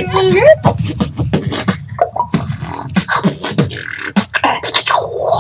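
Human beatboxing: a fast, irregular run of mouth-made drum hits and clicks, with a short sliding vocal tone near the end.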